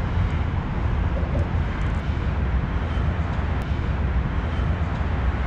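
Steady low rumble with a hiss: outdoor background noise, with no distinct sound standing out.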